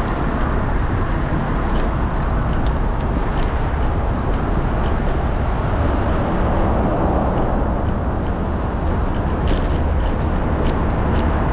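Steady rush of wind and road noise, with a deep rumble, as a fixed-gear bicycle carrying an action camera rides along, plus scattered light clicks.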